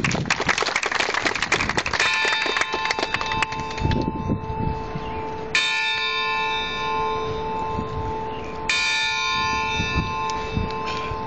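Clapping, then a large newly unveiled tower bell struck three times, roughly every three and a half seconds. Each stroke rings on with several steady tones that fade slowly.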